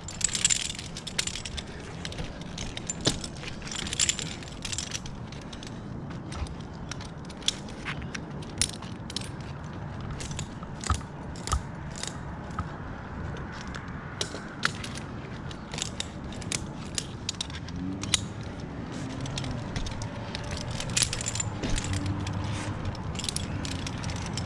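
Metal climbing hardware (carabiners and ascenders on the climbing rope) clinking and jangling in irregular sharp clicks as a tree climber moves about, over a low steady background hum.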